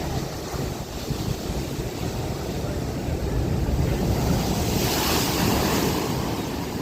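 Ocean surf: waves breaking and washing onto the shore, with a rising surge of hissing foam about five seconds in. Wind rumbles on the microphone throughout.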